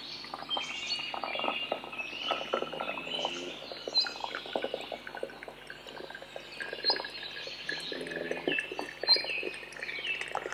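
Boiling water poured from an electric kettle into the narrow neck of a rubber hot-water bottle: an irregular gurgling and glugging, with many short high chirping squeaks.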